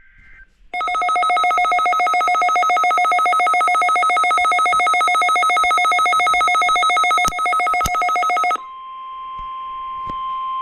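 A weather radio's electronic alert alarm sounds as a loud, fast-pulsing buzzy beep for about eight seconds, with two clicks near its end. It then gives way to the broadcast's steady single-pitched 1050 Hz weather alert tone over radio hiss, which marks the start of the NOAA Weather Radio Required Weekly Test.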